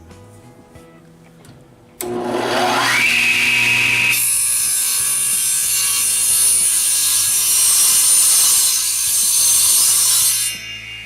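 Electric power saw cutting through a wooden 4x4. About two seconds in the motor starts with a rising whine, then the blade cuts through the wood with a loud, steady noise for about six seconds. Near the end the cut finishes and the blade keeps spinning with a lower, steady whine.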